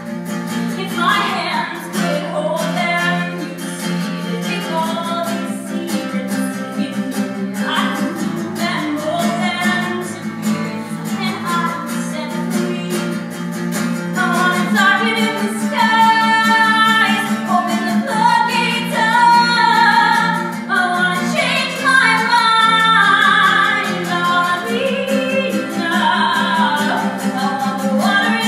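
A woman singing a slow pop song, accompanied by an acoustic guitar.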